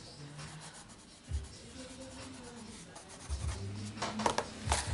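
Colored pencil scratching across paper in quick strokes, then a hand rubbing over the paper page, with a couple of sharper rustles near the end.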